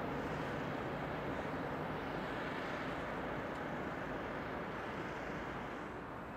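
Steady distant rumble of railway and road traffic, easing slightly toward the end.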